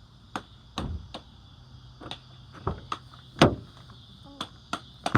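A series of about ten short, irregular knocks and clicks, the loudest about three and a half seconds in.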